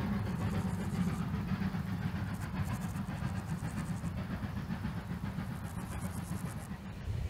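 Distant steam-hauled passenger train running past, a steady low rumble that slowly fades as it draws away.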